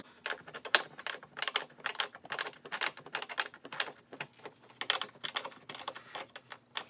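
Crescent wrench clicking and clinking against metal as locking nuts on a snowmobile tunnel rail are tightened by hand: a quick, irregular run of metallic clicks, several a second.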